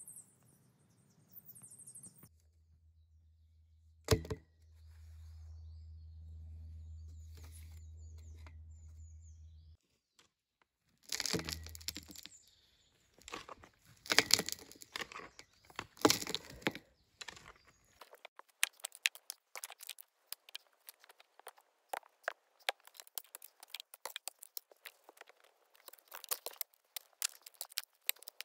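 Trailbuilding hand tools working dirt and debris, close up: a single sharp strike about four seconds in, then a run of heavy scraping strokes, then dense, fast crackling and crunching of soil and debris.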